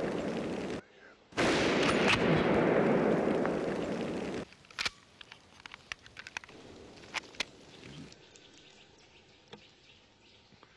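Loud, dense noise for the first four seconds, starting sharply about a second in and cutting off suddenly, then a run of quiet metallic clicks as a rifle's detachable box magazine is handled and seated in the rifle.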